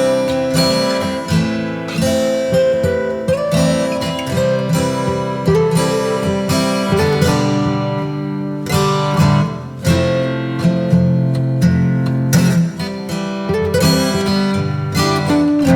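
Background music on strummed and plucked acoustic guitar.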